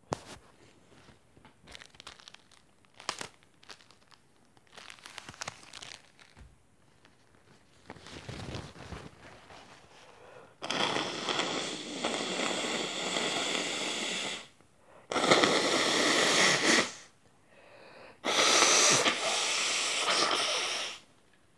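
A person blowing their nose hard into a tissue three times. Each blow is a long, loud, noisy honk of two to four seconds, the first the longest. Before them come soft rustling and clicks.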